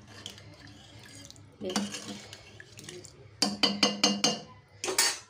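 Stainless steel plates and bowls clattering and clinking together on a kitchen counter, with a quick run of ringing metal knocks about three and a half seconds in.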